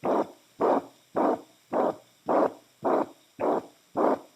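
A poodle puppy's heartbeat heard through a stethoscope, beating regularly at just under two beats a second. Each beat is a single rushing whoosh of turbulence in place of a separate lub and dub: a systolic murmur, taken for a congenital heart defect.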